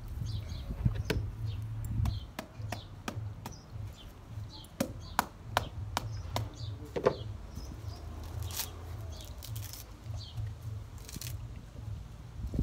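A stick striking a whole coconut held in the hand, cracking its hard shell open: a run of sharp, irregular knocks about two a second. A low steady rumble runs underneath.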